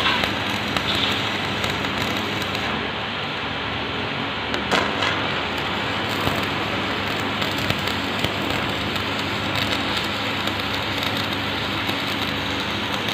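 Stick welding arc crackling and sizzling steadily as the electrode rod burns into steel.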